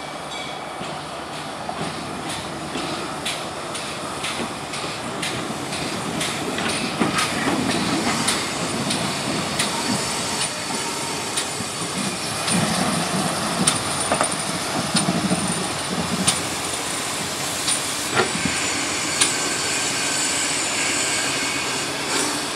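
GWR 1366-class pannier tank steam locomotive No. 1369 moving slowly past, with soft exhaust beats and its wheels clicking over the rail joints, and a hiss of steam.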